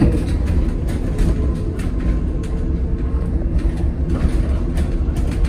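On board a BYD Alexander Dennis Enviro200EV battery-electric bus in motion: a steady low road rumble, with scattered rattles and knocks from the bus body.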